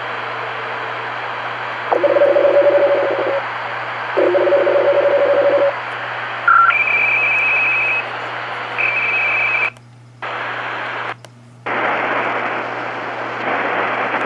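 Shortwave radio receiver in lower sideband on 4.270 MHz: steady static hiss under a strange, UVB-76-like buzzing signal. The buzzes come in separate bursts of a second or so. The first two are low, then they sound higher. The audio drops out briefly twice near the end.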